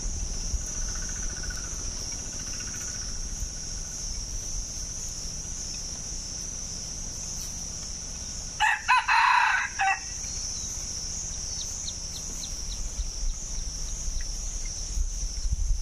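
Red junglefowl rooster crowing once, a short crow in a few broken parts, a little over halfway through. A steady high insect buzz runs underneath.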